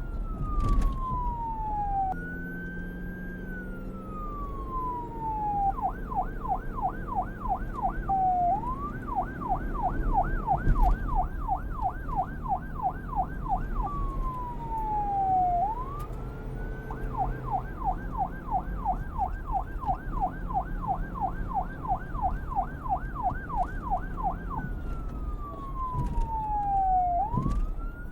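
Police car siren alternating between a slow wail, which climbs quickly and then falls away over two to three seconds, and a fast yelp warbling up and down about three to four times a second. It switches mode several times, with a low vehicle rumble underneath.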